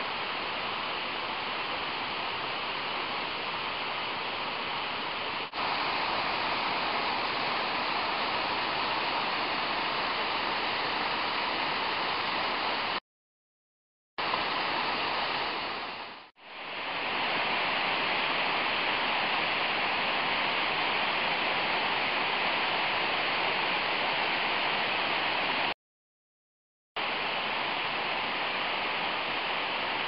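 Waterfall of white water tumbling over rock ledges, a steady rushing of falling, churning water. It is broken twice by about a second of silence and once by a quick fade out and back in.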